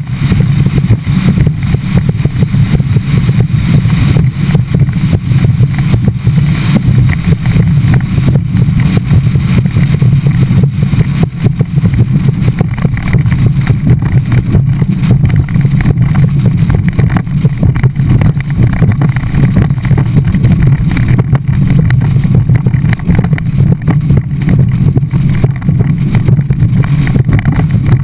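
Skeeter bass boat running at speed across choppy water: loud, unbroken wind buffeting on the microphone over the boat's engine and hull noise.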